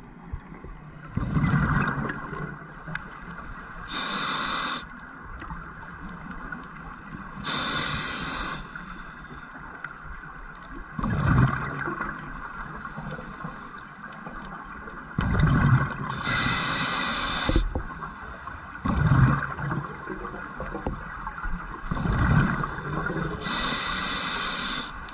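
A scuba diver breathing through a regulator underwater. Four hisses of air on the inhales, each about a second long, alternate with bubbling rumbles as exhaled air escapes.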